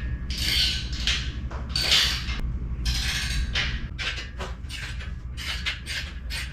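Ratcheting socket wrench tightening the screws of a treadmill roller deck, clicking in repeated back-and-forth strokes that come quicker and shorter in the second half.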